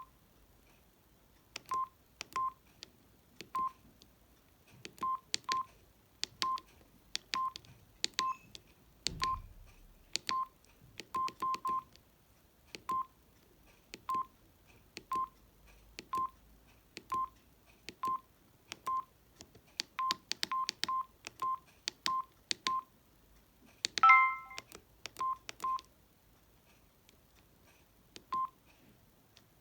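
Samsung SGH-D600 mobile phone keypad beeping at each button press while scrolling through its menus: short beeps all at one pitch, roughly one a second and irregularly spaced, each with a faint click of the key. Near the end comes a short, louder tone of several notes.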